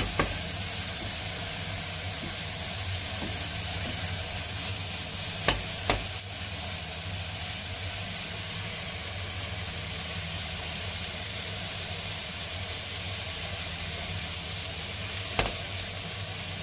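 Sliced onions and bell peppers sizzling steadily in a hot frying pan as a silicone spatula stirs and turns them. A few sharp knocks stand out: one right at the start, two close together about five and a half seconds in, and one near the end.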